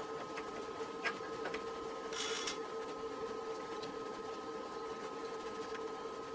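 Steady electrical hum with a thin high whine over it, with a few faint clicks about a second in and a short hiss about two seconds in.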